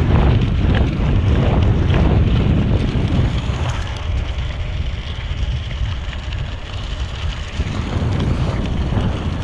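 Wind buffeting an action camera's microphone on a moving bicycle: a loud, steady low rumble of air noise that eases somewhat for a few seconds in the middle.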